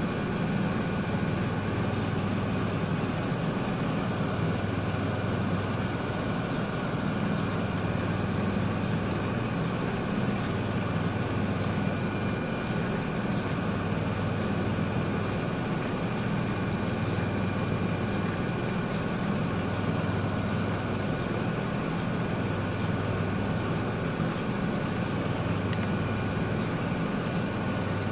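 Miele W1 front-loading washing machine running with water in the drum: a steady low hum of the motor turning the drum that swells and eases every few seconds, over an even wash of water and machine noise.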